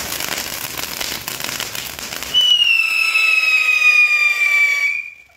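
Ground fountain firework spraying sparks with a crackling hiss; about two and a half seconds in, a loud shrill whistle starts suddenly and sinks slightly in pitch for about two and a half seconds before stopping abruptly.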